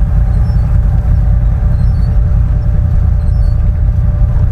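Steady low rumble of a turbocharged Chevrolet Suburban driving on snowy roads, engine and road noise heard from inside the cabin, with a faint steady hum above it.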